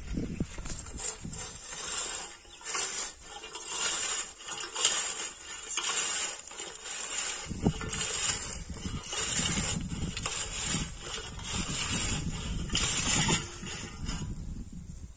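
Hand-pushed wheel weeder, its flat steel blade and spiked wheel shoved through dry, cloddy soil: repeated crunching and scraping as the clods break, in short pushes a little more than once a second.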